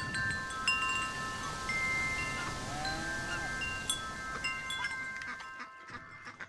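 Chimes ringing: several clear tones struck at irregular moments, each ringing on and overlapping, fading out near the end.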